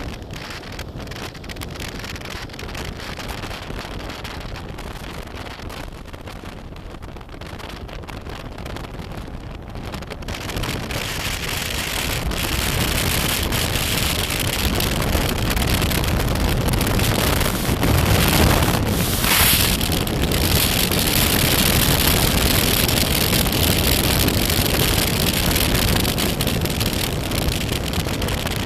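Wind rushing over the microphone of a moving BMW F800GS motorcycle, with the bike's running and road noise beneath. It grows louder from about ten seconds in and is loudest a little past halfway.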